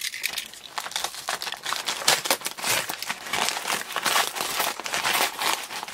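Brown kraft-paper wrapping crinkling and crackling as it is cut open with a utility knife and handled, a dense, irregular run of crackles.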